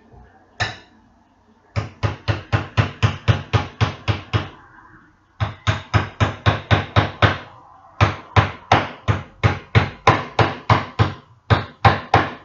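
Hammer tapping the lid of a paint tin down to seal it shut: a single strike, then runs of light, quick blows at about four to five a second, with short pauses between the runs.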